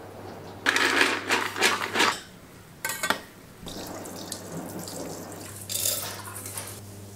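Mixed dal lentils swirled in water in a steel bowl to rinse them, the water sloshing in short bursts against the metal, with a light clink about three seconds in. Near the end comes another splash as they are tipped into a steel pressure cooker.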